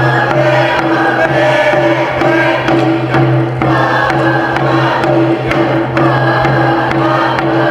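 Group of voices chanting an Alaska Native song in unison over a steady beat of handheld frame drums.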